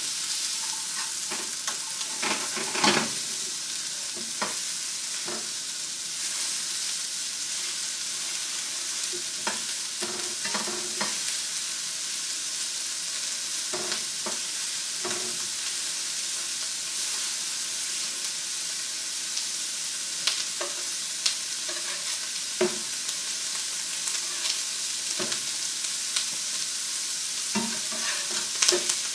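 Square sausages and chopped onion frying in pans, a steady sizzling hiss, with scattered clicks and scrapes of a utensil against the frying pan as the sausages are moved.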